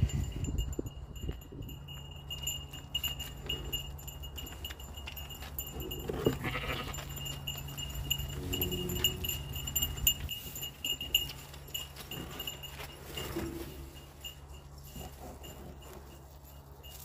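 Livestock bleating a few times, the clearest and longest call about halfway through, over a steady low hum.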